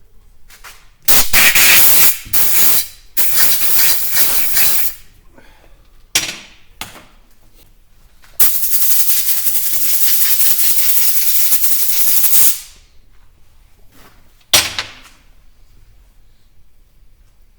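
Compressed air hissing out in loud bursts: three close together over the first few seconds, a short one around six seconds in, one steady blast of about four seconds, and a sharp short blast near the end.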